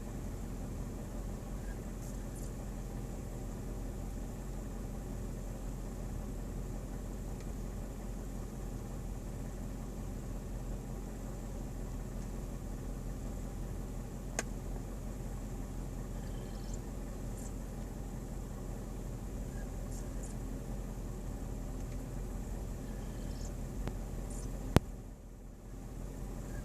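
Mercedes-Benz ML-Class (W163) running with a steady low hum and faint, irregular high-pitched chirps: the odd noise the owner is recording. A sharp click comes near the end, and the hum dips briefly after it.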